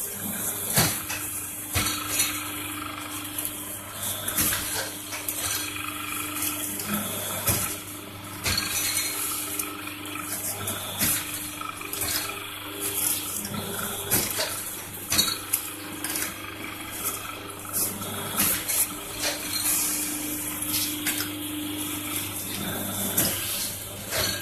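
Paper plate making machine at work: a steady motor hum, with frequent metallic clicks and knocks as the die press closes and opens and paper sheets and plates are handled.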